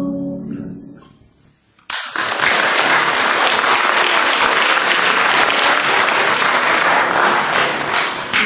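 The band's final notes fade out, and about two seconds in an audience starts applauding, loud and steady.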